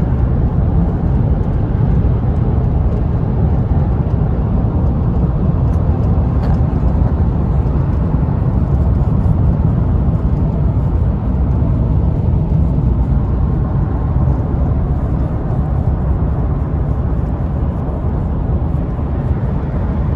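Steady low rumble of road and wind noise inside a moving car, with no breaks or changes in level.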